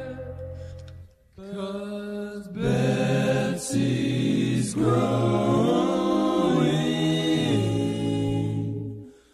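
Music: a song's last notes, a brief break about a second in, then a song with sung vocal harmonies over backing that fades out near the end.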